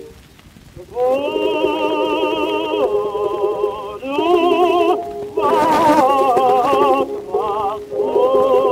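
Vocal quartet singing in harmony with orchestral accompaniment, played from a 1918 acoustically recorded Columbia 78 rpm record. After a brief pause near the start come phrases of held notes sung with vibrato, loudest about halfway through.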